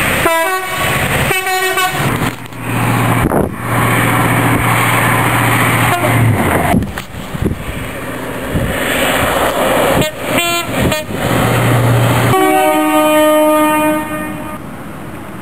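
Train horns: two short blasts at the start and a longer blast near the end, with the rumble of a train and a steady low drone in between.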